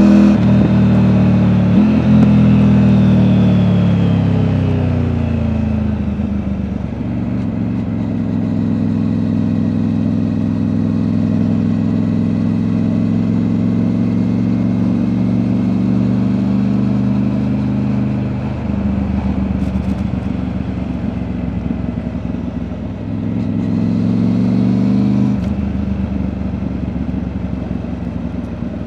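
Triumph Tiger 900's three-cylinder engine through an Akrapovic exhaust, heard from the rider's backpack on the move. The engine note falls off in the first few seconds, holds steady for a long stretch, then climbs under acceleration with abrupt gear changes about two-thirds of the way through and again near the end.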